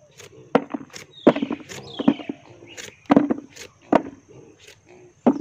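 Knife peeling the skin off a green papaya: a series of short, sharp cutting strokes at an uneven pace, two of them trailing off in a falling hiss.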